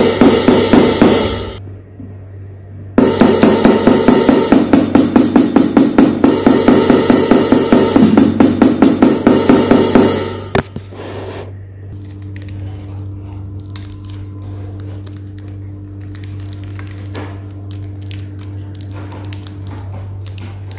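Yamaha electronic drum kit sounding drum and hi-hat voices as a stick strikes the pad: a few loud hits, a short pause, then a steady run of about four strikes a second for some seven seconds. It is a test of a hi-hat controller whose force sensing resistor has been replaced by tactile switches. Afterwards only a faint steady hum remains.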